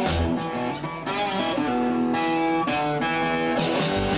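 Live blues band music led by amplified cigar box guitars playing held, ringing notes. The bass drops out just after the start and comes back in near the end.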